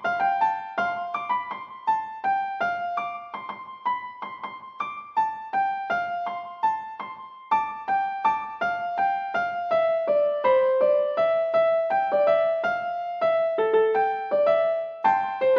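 Background music: a light piano melody of single struck notes, a couple of notes a second.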